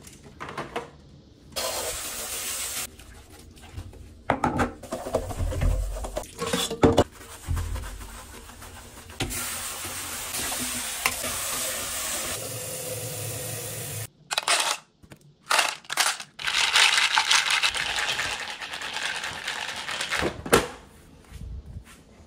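Tap water running into a stainless steel dog bowl as it is washed in a sink, in several separate stretches of steady splashing hiss that start and stop abruptly. Between them come knocks and clanks of the metal bowl being handled, with a sharp knock near the end.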